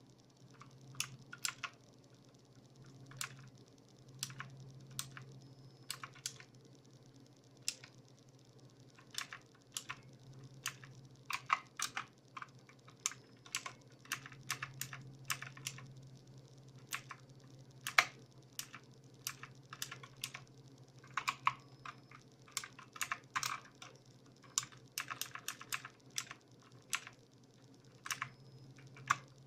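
Motospeed CK888 mechanical keyboard being typed on: irregular key clicks, single presses at first and quicker runs of keystrokes later, over a faint low hum.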